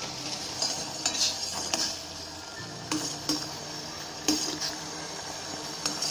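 A spoon stirring jaggery melting in boiling water in a steel pot, knocking and scraping against the pot several times. A steady bubbling hiss from the boiling syrup runs underneath.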